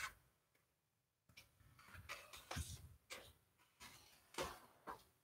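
Scissors snipping through printer paper: a run of faint, uneven snips.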